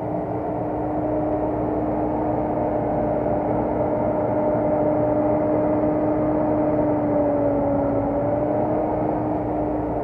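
John Deere CTS rice combine harvester running under harvesting load as it passes close by, a steady machine drone with a high whine. It grows louder toward the middle and eases off near the end, the whine dipping slightly in pitch as it goes by.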